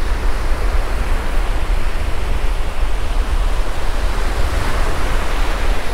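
Steady wind rumble on the microphone over waves breaking on the beach.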